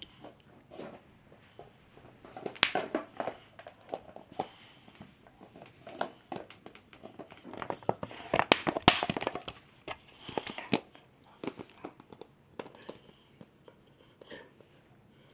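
Boxer dog biting and mouthing a plastic pop bottle, the plastic crackling and clicking in irregular flurries, loudest about two and a half seconds in and again around eight to nine seconds.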